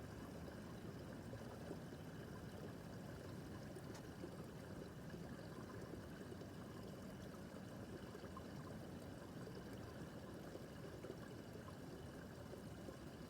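Small brook babbling and trickling steadily over stones.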